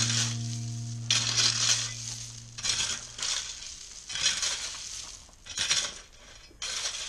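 Repeated gritty scraping or crunching strokes, coming roughly once a second. Under the first strokes a held note from the music rings on and fades out about two and a half seconds in.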